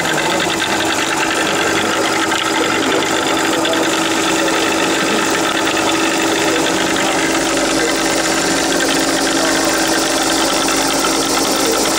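Sheet-feeding inkjet printing line running: the conveyor and vacuum sheet feeder give a steady mechanical hum with a fast, fine ticking throughout.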